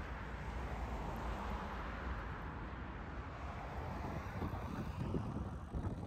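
Wind rushing over the microphone while riding a bicycle, a steady noise with a low rumble, turning gusty and buffeting in the second half.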